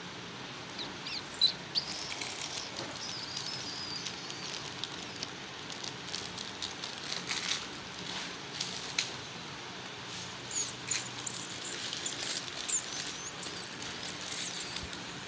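Small birds chirping intermittently in short high notes, in a cluster early on and a busier run near the end, with a few scattered sharp clicks, the loudest about a second and a half in.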